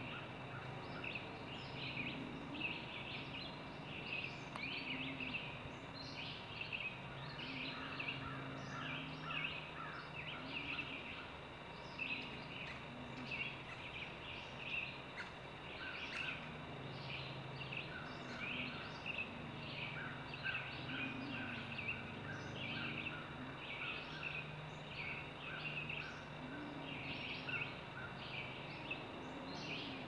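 Woodland songbirds chirping and singing, many short calls and trills overlapping throughout, over a low drone that comes and goes in the background.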